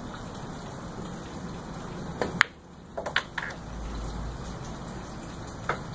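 Pool cue striking the cue ball and the balls clicking together about two seconds in, then a few quieter knocks of balls against the cushions and into a pocket, and one more click near the end, over a steady background hiss.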